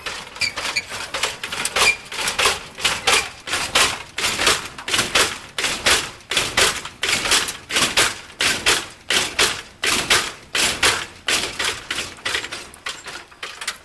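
A steady run of sharp clacks, about two to three a second, that starts abruptly and stops near the end.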